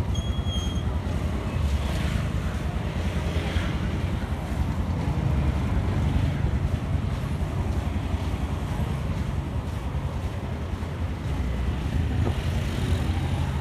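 Wind buffeting the microphone: a steady, fluttering low rumble over outdoor street noise.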